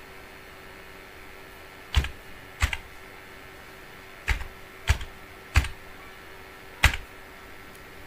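Six separate keystrokes on a computer keyboard, unevenly spaced, as a six-digit code is typed in, over a faint steady hum.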